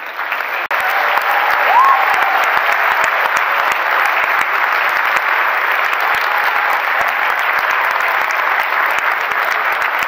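Audience applauding steadily, with one short rising call from the crowd about two seconds in.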